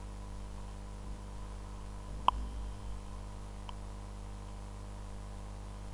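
Steady low hum with a single sharp click about two seconds in and a fainter tick about a second later.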